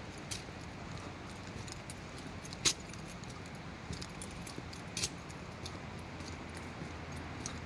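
Steady rushing noise, typical of a river below, with a few sharp clicks and jingles at irregular intervals. The loudest click comes a little under three seconds in.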